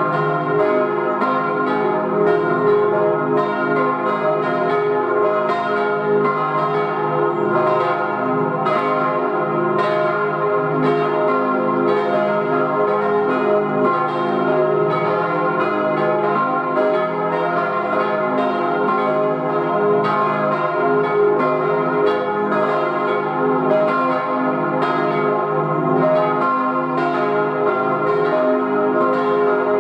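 Church bells cast by H. Rüetschi in 1897 swinging and ringing together in a continuous peal, strikes following one another several times a second with their tones overlapping.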